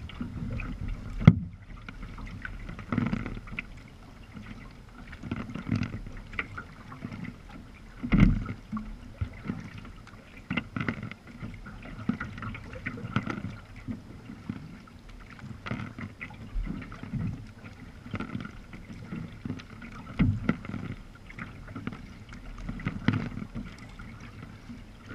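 Sea kayak being paddled: regular paddle strokes splashing into the water about every two and a half seconds, with water washing along the hull. There is one sharp knock just over a second in.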